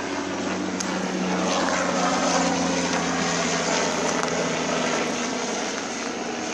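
An engine running steadily with a low, even drone over a rushing hiss; part of the drone drops away about five seconds in.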